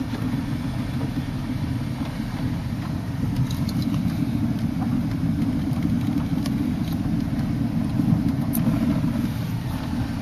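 Car driving slowly, heard from inside the cabin: a steady low rumble of engine and road noise, with a few faint clicks.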